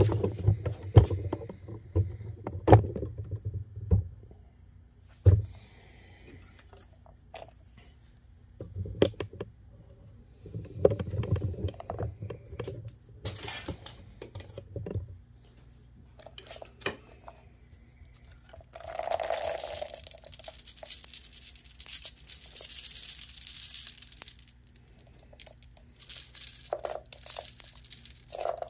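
Glass marbles and milled charcoal handled out of a rock-tumbler drum and sifted through a metal mesh strainer: scattered knocks and rattles, then about five seconds of steady scratchy hiss as the strainer is shaken and the powder falls through the mesh.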